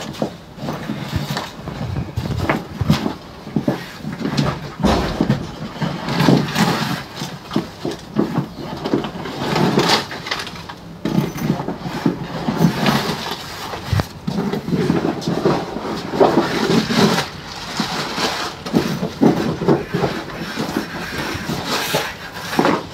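Irregular rustling and bumping of handling: clothing being pulled out of a red punching bag and moved about on a steel table among plastic-wrapped packs.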